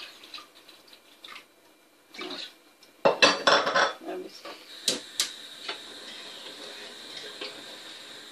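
Crockery clattering loudly for about a second, three seconds in. Then a couple of sharp clicks from a gas stove as a burner is lit, and the burner's steady hiss from there on.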